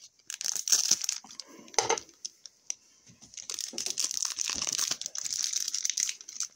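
Hockey card pack wrappers crinkling and rustling as packs are handled and opened: a burst of crinkling in the first two seconds, a brief lull, then steady crinkling from about halfway on.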